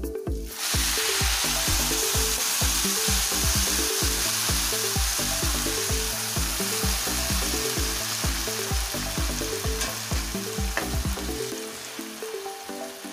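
Hot water poured into a pan of oil-fried rice and lentils, setting off a loud sizzle that starts suddenly about half a second in, holds steady and eases a little near the end. Background music with a steady beat plays underneath.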